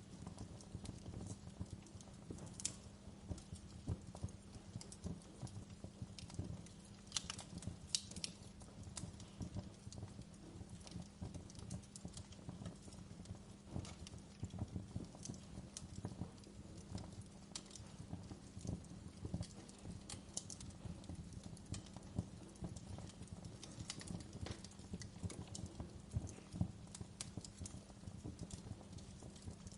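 Campfire crackling steadily, with irregular small pops and a few sharper snaps; the loudest snaps come about seven to eight seconds in.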